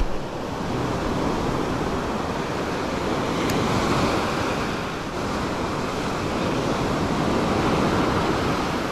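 Ocean surf breaking and washing up a sandy beach: a steady rush of foaming water that swells and eases with the waves.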